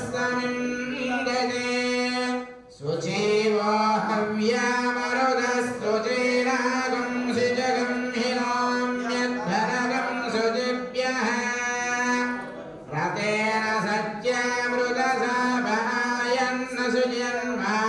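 A man singing a slow melody with long held notes, pausing briefly twice.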